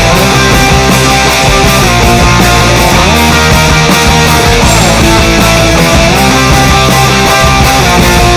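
Loud rock music with electric guitar, playing steadily.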